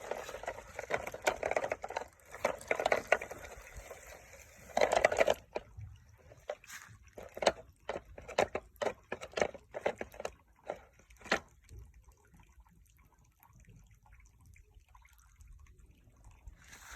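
Water splashing and pouring for about five seconds, then scattered drips and small clicks and taps that thin out to near quiet in the last few seconds.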